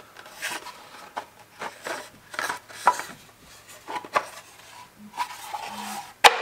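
Cupholder being handled: a run of irregular light clicks, knocks and short scrapes of hard parts against each other, with one loud sharp click near the end.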